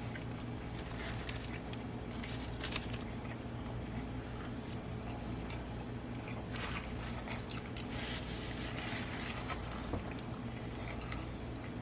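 A person biting and chewing a bacon burger, with wet, squishy mouth sounds that come in bunches. A steady low hum runs underneath.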